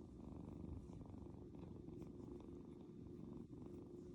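Scottish Fold kitten purring steadily, a low continuous rumble with a short break about three and a half seconds in.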